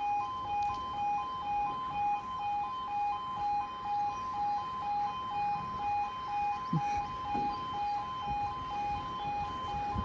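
Apollo E2S level crossing sounders giving their two-tone alarm, switching steadily between two pitches about twice a second: the warning that the crossing is closed for an approaching train.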